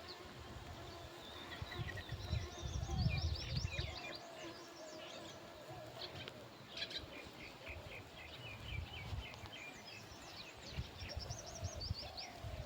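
Several small birds chirping and trilling in overlapping song, with low rumbling bursts underneath, loudest a few seconds in.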